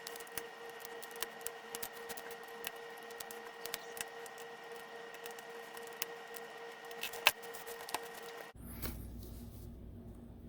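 Scattered small clicks and taps of screws being taken out of a tablet's back with a small screwdriver, over a faint steady hum. The sharpest click comes about seven seconds in.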